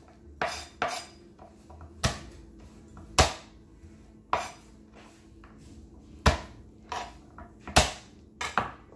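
Kitchen knife knocking on a cutting board as ingredients are cut up: about ten sharp knocks at an uneven pace, roughly one a second.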